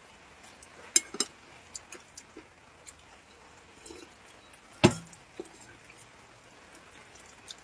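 Light clinks and taps of cups and tableware, scattered and irregular, with one louder knock about five seconds in.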